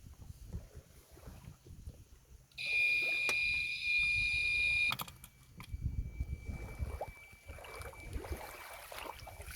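Outboard-motor anti-theft alarm sounding one loud, steady, high-pitched electronic tone for a bit over two seconds, starting about two and a half seconds in and cutting off suddenly.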